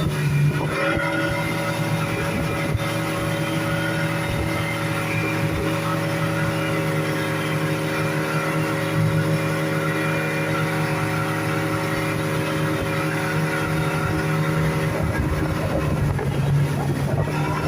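Speedboat engine running at a steady speed, a constant drone whose pitch shifts slightly near the end.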